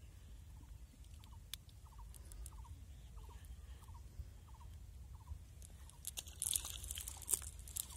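A faint chirping call repeated a little under twice a second over a low rumble. About six seconds in, a dense crackle of rustling and clicking starts and becomes the loudest sound.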